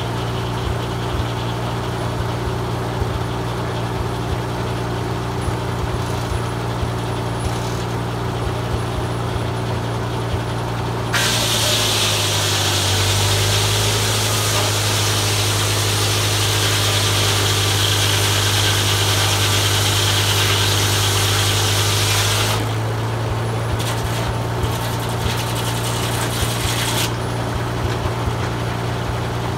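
A Farmall M tractor engine runs steadily, driving a Foley Belsaw circular sawmill blade. About 11 seconds in the blade cuts into a pine log: a loud hissing cut lasts about 11 seconds while the engine's pitch drops slightly under the load. Then the blade spins free again.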